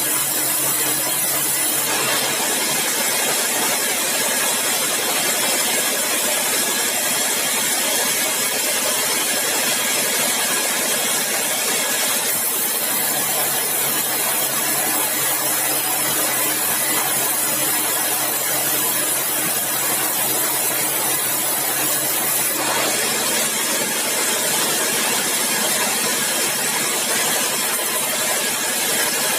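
Sawmill machinery running steadily: an engine hum under a loud, even hiss from the saw. The hiss shifts in strength a few times.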